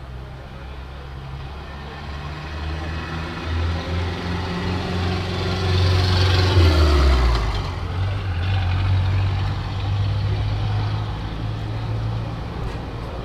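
A motor vehicle going past: engine drone and road noise swell to a peak about halfway through, where the engine note drops, then ease off while a low engine drone carries on.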